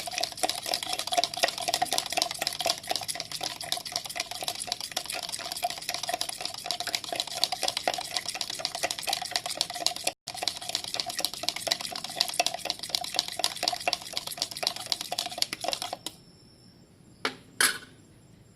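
A metal spoon stirring sugar into wuluh starfruit juice, with rapid, continuous clinking against the sides of the container. It breaks off for an instant about halfway through. The stirring stops about two seconds before the end, followed by two short knocks.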